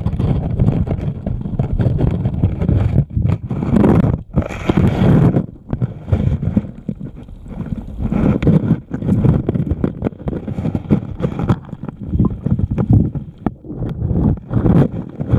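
River current rushing over a camera sitting underwater on a rocky riverbed, heard as a muffled, low rumbling wash that swells and fades irregularly.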